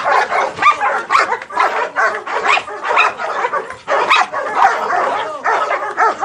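Several dogs barking excitedly at once, barks overlapping in a rapid, unbroken stream.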